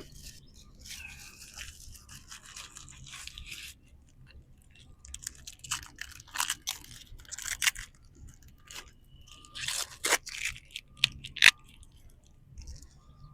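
Hands handling small plastic parts: a soft rustle, then irregular scrapes and light clicks of plastic against plastic.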